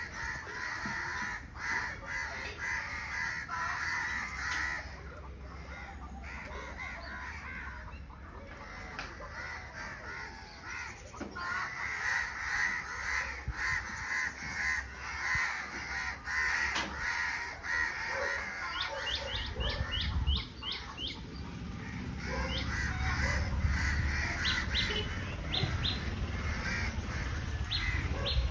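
Birds calling outdoors, a busy chorus of caws and calls, with quick high chirps repeated in bursts in the second half. A low rumble rises under it later on.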